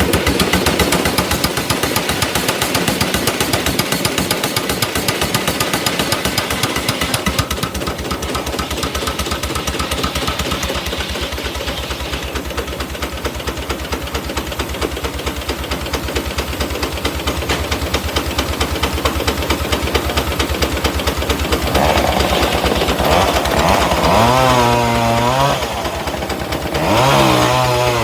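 An engine running with a fast, even knock. About 22 seconds in, a higher whine joins it, swinging up and down in pitch.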